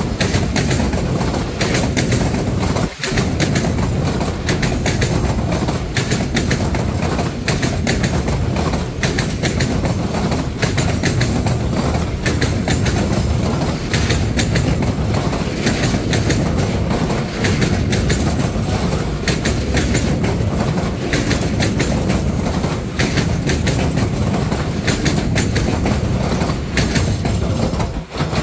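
Freight train of covered hopper wagons passing close by: a steady heavy rumble with rapid clickety-clack of the wheels over the rail joints. It drops off sharply near the end as the last wagon goes by.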